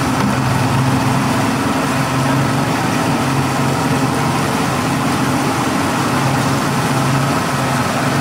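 Outboard motor running at a steady pitch as the boat tows a rider, under an even rush of wind and churning water.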